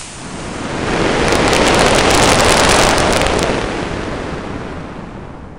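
Estes E9-4 black-powder model rocket motor burning during liftoff, heard from a camera riding on the rocket: a loud rushing roar with crackling that swells over the first few seconds. It then fades steadily as the motor burns out, leaving air rushing past the rocket.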